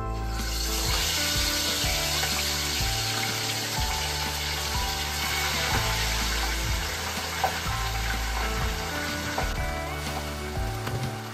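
Fish frying in hot oil in a pot, a steady sizzle, with background music underneath.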